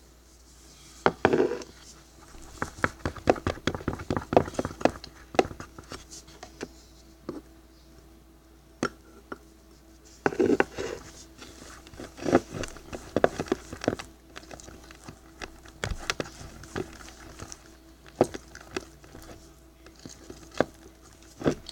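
Slime being stirred with a stick in a container: irregular clicks and taps of the stick against the sides, dense for the first few seconds, then scattered.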